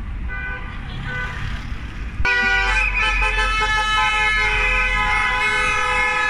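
Car horns honking: a couple of short toots in the first second or so, then from about two seconds in a long horn blast held steady, over the low rumble of passing car engines and tyres.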